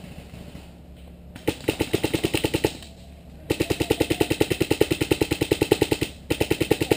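Paintball marker fired in three rapid strings of shots, about ten pops a second: a short string about a second and a half in, a longer one of about two and a half seconds from the middle, and a brief one near the end.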